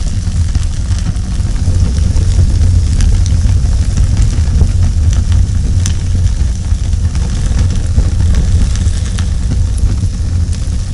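Fire sound effect: a steady, deep rumble of burning with scattered crackles.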